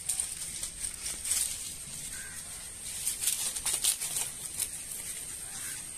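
Dry palm fronds rustling and crackling under a Rottweiler puppy as it walks onto them and mouths at them; the crackles come irregularly, thickest from about one to four seconds in.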